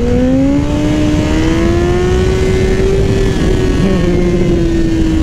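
Sport motorcycle engine pulling under throttle, its pitch climbing steadily for about three seconds, then holding and easing off slightly near the end, over a steady rush of wind and road noise.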